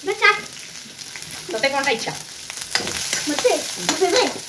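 Chopped onion and peanuts sizzling in hot oil in an iron kadai, stirred with a steel ladle. In the second half there are several sharp clicks and scrapes as the ladle knocks and drags across the pan.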